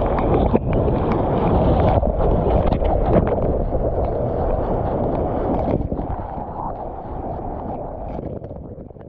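Water sloshing and splashing around a surfer in the sea, with wind buffeting the microphone, fading out near the end.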